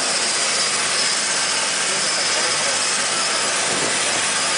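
Cabin noise of a twin-turboprop seaplane's engines running: a steady, loud rushing noise with a thin high whine over it, unchanging in level.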